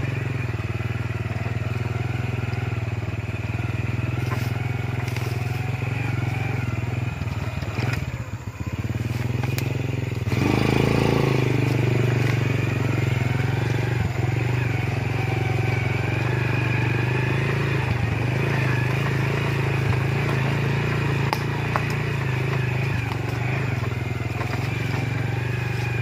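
Small motorcycle engine running steadily while being ridden along a dirt path. It eases off about eight seconds in, then pulls harder again a couple of seconds later.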